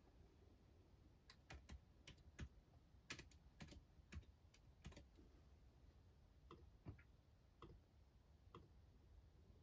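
Faint typing on a computer keyboard: a quick run of key clicks, then a few single clicks spaced out in the second half.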